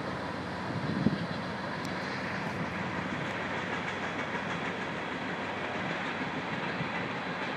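A freight train of covered grain hopper cars rolling past, giving a steady rumble of steel wheels on the rails with faint repeated clicks. There is a short thump about a second in.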